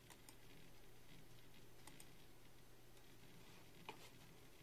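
Near silence: room tone with a low steady hum and a few faint clicks of a computer mouse, about three over the few seconds.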